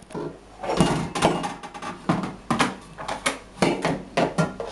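Irregular knocks and clatters of plastic cups and containers bumping against a stainless steel kitchen sink as a small child handles them, several knocks a second, some sharper than others.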